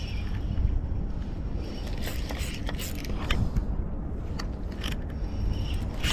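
Wind buffeting the microphone with a steady low rumble, with a few scattered light clicks from a spinning reel being handled as the crank handle is gripped.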